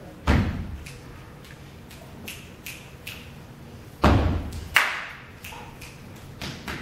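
Stage percussion: three heavy thumps that echo around the hall, about a quarter second in, about four seconds in and just under five seconds in. Lighter, higher taps fall between them.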